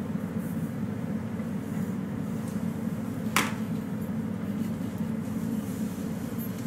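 Steady low machine hum, like a fan or air-conditioning unit running, with one sharp click about halfway through.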